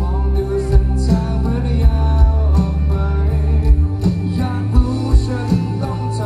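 Live rock band playing: a male singer over electric guitars, bass and a drum kit with a steady beat.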